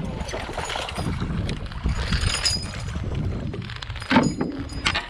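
Wind rumbling on the camera microphone and water splashing and lapping around a canoe while a hooked largemouth bass is fought and brought in, with two sharp knocks near the end.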